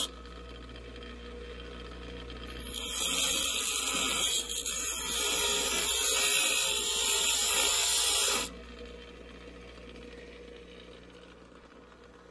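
Ryobi 6-inch bench grinder running, its wheel grinding a notch into the end of a metal mop-handle tube. The loud grinding lasts from about two and a half seconds in to about eight and a half seconds, and the motor's steady hum continues before and after it.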